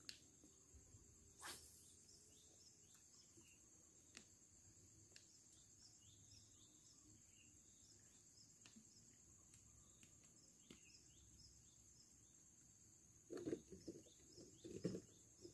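Near silence outdoors: a steady high insect drone with faint scattered bird chirps, and a few brief low sounds near the end.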